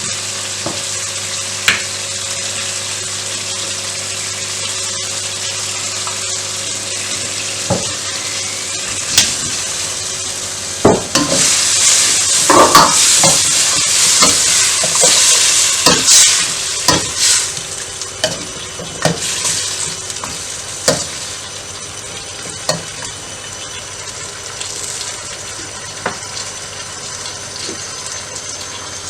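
Food sizzling and frying in a hot pan, stirred with a utensil that scrapes and knocks against the pan. The stirring is busiest and loudest for a few seconds in the middle.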